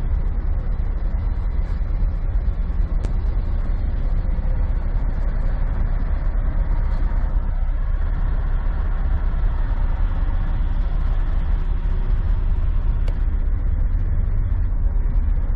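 Diesel semi-truck engine idling: a steady low rumble that holds even throughout.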